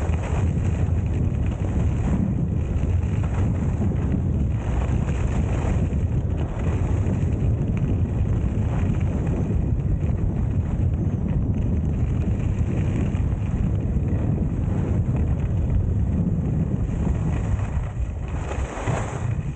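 Heavy, steady wind rushing over the microphone of a camera carried by a skier gliding fast down a groomed piste, with the hiss of the skis running over the snow underneath.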